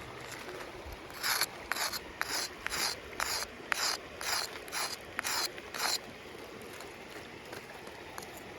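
A piece of soft gray shale scraped hard against stone in a quick run of about a dozen rough strokes, two to three a second. The scraping stops about six seconds in.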